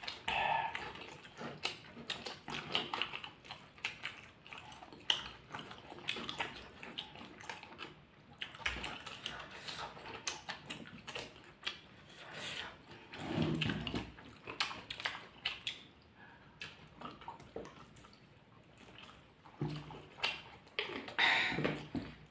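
Close-miked chewing and wet mouth sounds: irregular smacks and clicks as food is picked up by hand and eaten. A couple of short low vocal sounds come in between.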